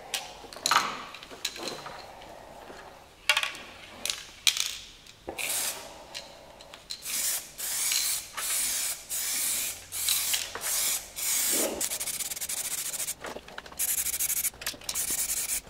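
Aerosol spray can of white primer hissing in a series of short bursts, each about half a second to a second long, coating brake drums in light passes. A few sharp clicks come before the spraying starts.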